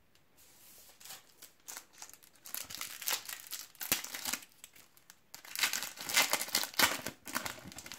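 Foil Panini Adrenalyn XL card pack crinkling in the hands and being torn open. The crackling comes in irregular spells, busiest around the middle and again near the end.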